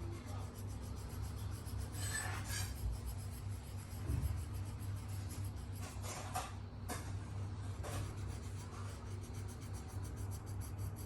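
A drawing tool scratching back and forth on paper as a drawn eye is coloured in by hand, in irregular strokes over a steady low hum.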